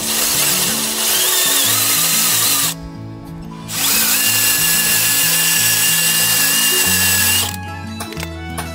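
Cordless drill driving a small hole saw into the painted wooden planking of a boat hull, cutting a thru-hull hole. It runs in two stretches of about three seconds each, with a steady motor whine, stopping briefly in between and again near the end. Background music plays underneath.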